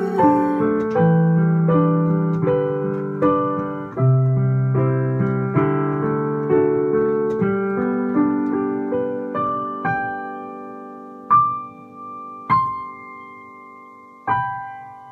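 Solo piano playing the instrumental close of a song: chords over bass notes, each struck and fading, that slow and thin out into three last high notes struck in the final few seconds and left to ring.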